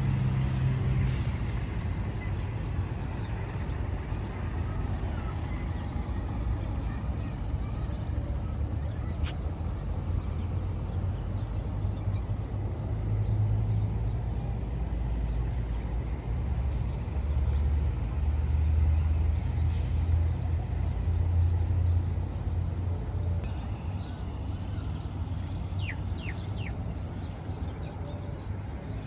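Street traffic: vehicles rumbling past, swelling louder about halfway through, with a few short high chirps near the end.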